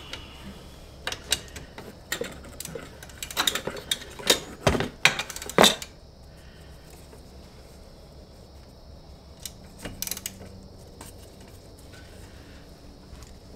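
Wrench working the bolts on an ATV brake caliper: a run of sharp metal clicks and clinks from about a second in until six seconds, and a few more near ten seconds, as the bolts are snugged down.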